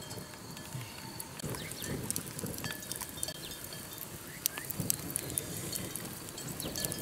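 Wood fire crackling with sharp, scattered pops under whole fish grilling on a stick rack. Faint short chirps sound above it.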